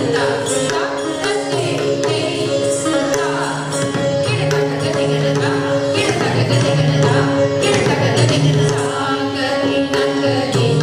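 Odissi classical dance music: a sung melody over a steady drone, with drum beats.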